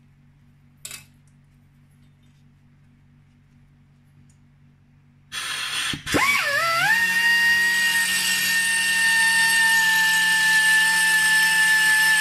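Air-powered belt sander starting up: a rush of air about five seconds in, then the motor winds up quickly in pitch and runs at speed with a steady high whine, as the belt is put to a painted steel panel to strip paint before welding. A single light click about a second in.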